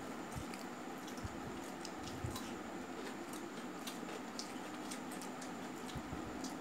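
Fingers mixing rice with chicken curry on a steel plate: soft squishing with many small scattered clicks, over a steady low hum.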